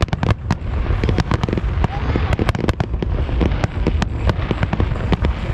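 Aerial fireworks exploding in rapid, irregular succession, many sharp bangs overlapping over a continuous low booming.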